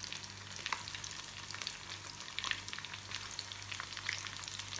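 Marinated fish pieces frying in hot oil in a pan: a steady sizzle full of small crackles and a few sharper pops. The fish is fried through on both sides.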